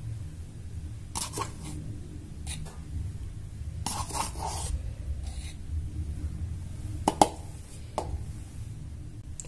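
Metal spoon scooping cornflour from a container into an enamel bowl: a few soft scrapes and taps, with a sharp tick about seven seconds in, over a steady low hum.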